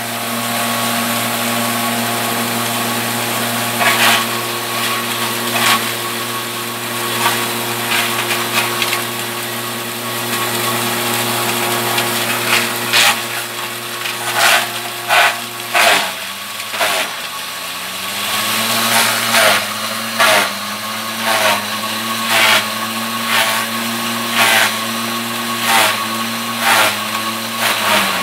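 Electric forage chopper running with its motor humming steadily while cassava stems are fed in and the blades chop them with many sharp cracks. About halfway through, the motor's pitch drops and then keeps dipping and recovering as it labours under the stems.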